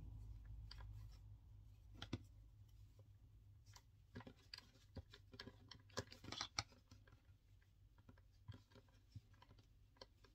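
Faint, irregular light clicks and scratchy rubbing as hands knot macrame cord on a keychain, with a cluster of sharper ticks around the middle.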